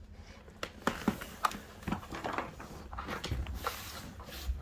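A large dog working a plastic treat puzzle (Outward Hound Nina Ottosson Dog Brick): irregular clicks and knocks of its plastic lids and bone-shaped blocks as the dog noses at it, with the dog's sniffing and snuffling.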